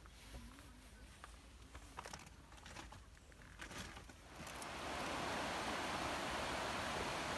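A few faint clicks and rustles, then about four and a half seconds in the steady rush of a shallow rocky stream flowing over stones begins.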